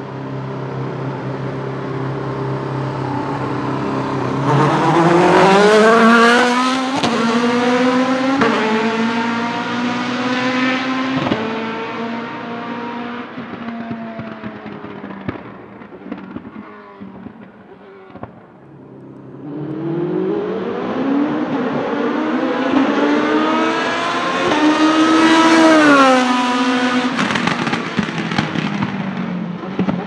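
Rebellion R-13 LMP1 prototype's Gibson GL-458 4.5-litre V8 running steadily at pit-lane speed, then accelerating hard through several upshifts and fading away. About twenty seconds in the race engine approaches again at speed and passes with a drop in pitch, then fades.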